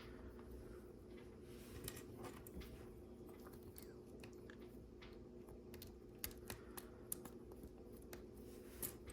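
Faint, irregular clicks of small plastic LEGO pieces being handled and pressed together, more frequent near the end, over a low steady room hum.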